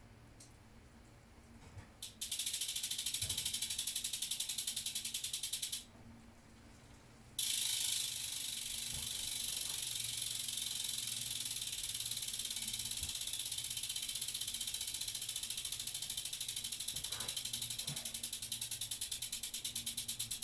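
Bicycle rear freehub ticking rapidly as the hanging wheel spins freely. It stops about six seconds in, starts again a second and a half later, and the clicks gradually slow toward the end.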